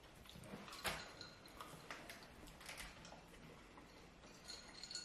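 Faint, scattered clicks and small taps from people eating and handling fried chicken and its packaging at a table, with one sharper click about a second in.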